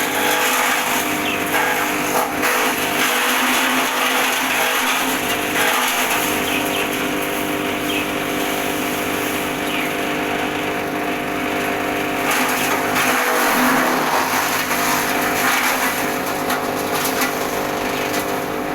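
A JB Micro 2 HP chaff cutter running at high speed: a steady machine hum under a noisy whirr that swells for a few seconds about twelve seconds in.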